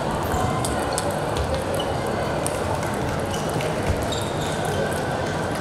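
Table tennis balls clicking off paddles and tables, scattered irregular clicks from several matches played at once in a large hall, over a steady hall din.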